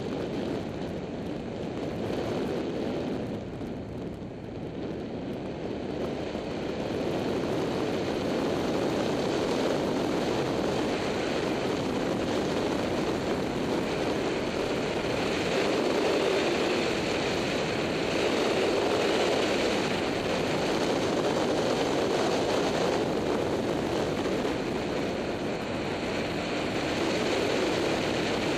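Wind rushing over the microphone of an action camera on a moving motorbike, with engine and road noise blended into a steady roar. It dips briefly a few seconds in and is louder from about seven seconds on.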